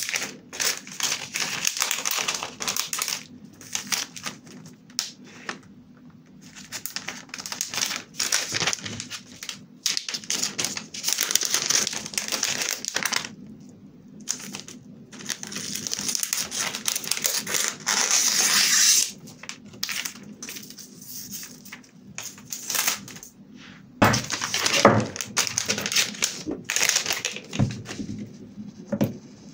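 Crinkling of a thin, shiny plastic cellophane sheet being handled and folded in a journal, in irregular bursts with short pauses. Near the end comes a glue stick rubbed across paper.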